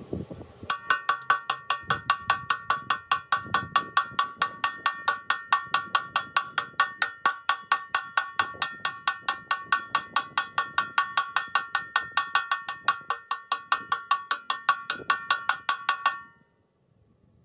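Rapid, evenly spaced metallic ticks, about five or six a second, each with a bright bell-like ring like a cowbell pattern. They stop suddenly shortly before the end.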